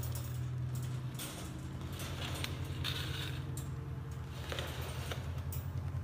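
A low steady motor hum with a few faint clicks.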